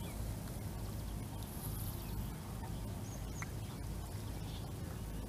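Steady outdoor background noise with a low rumble, and a few faint, short, high bird chirps about three seconds in.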